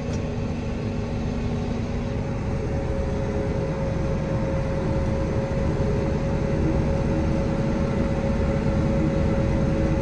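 A new John Deere wide-track tractor and the harvest machinery alongside it running, heard from inside the tractor cab: a steady drone with a steady whine held over it, growing slightly louder.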